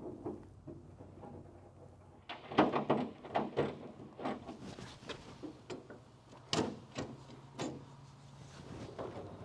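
A run of irregular knocks and clatters, loudest about a third of the way in, over a low steady hum.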